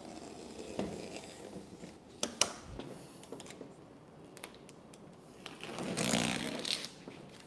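Vinyl wrap being handled and worked onto a mini fridge's side: soft rustling, two sharp clicks about two and a half seconds in, then a louder rasping scrape near the end.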